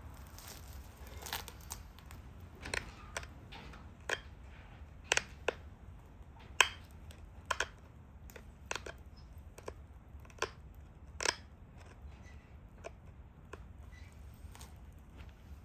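A stone Dalton point being pressure flaked: sharp, crisp clicks at irregular intervals, roughly one a second, as small flakes snap off the edge. The loudest snap comes about six and a half seconds in.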